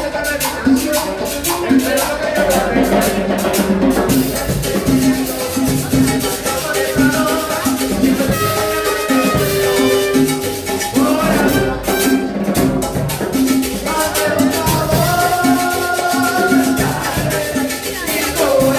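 Live cumbia music played by a band, with a repeating bass line under a melody.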